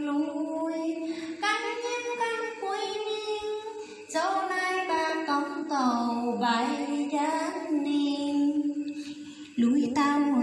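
A woman singing a vè, a folk narrative song, solo into a handheld karaoke microphone, with long held notes that bend in pitch. A new, louder phrase begins near the end.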